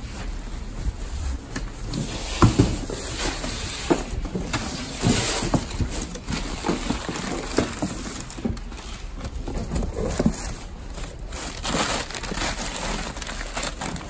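Cardboard parcel being slit open, then crumpled newspaper packing rustling and crinkling as hands pull it out of the box, with scattered crackles and light knocks.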